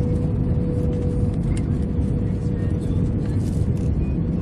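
Steady cabin noise heard from inside an Airbus A320 on final approach with flaps extended: a low rumble of engines and airflow with a steady mid-pitched hum running through it.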